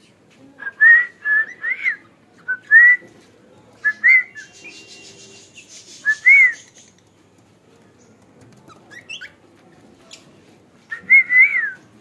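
Cockatiel whistling: clear, short rising and arching whistled notes in several brief phrases with pauses between, plus a few quick chirps.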